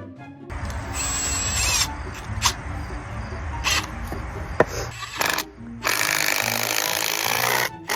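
A power tool running in several bursts: a burst of about a second, two short ones, and a longer one of nearly two seconds near the end, with a few sharp clicks between, over background music.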